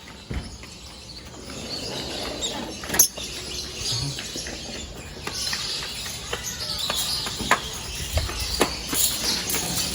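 Many caged birds chirping and twittering together, growing busier from about two seconds in, with a sharp knock about three seconds in.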